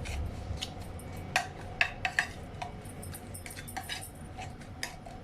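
Scattered light clicks and clinks of kitchen utensils against a dish, about half a dozen, irregularly spaced.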